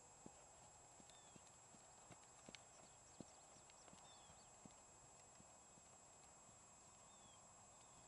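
Faint hoofbeats of a bay Hanoverian filly trotting on arena sand, soft irregular thuds that thin out after the first half, over a steady low hiss.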